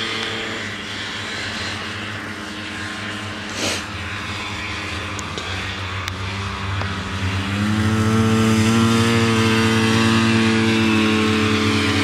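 Vintage two-stroke snowmobile engines running hard in a race, growing louder about seven seconds in as a sled comes close, its pitch rising slightly and then dropping. A brief sharp click about a third of the way in.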